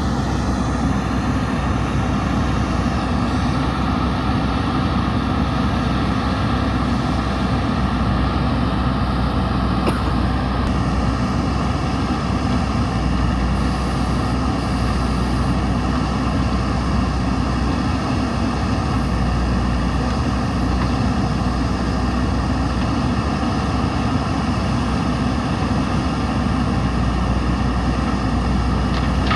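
JCB 3DX backhoe loader's diesel engine running steadily under work.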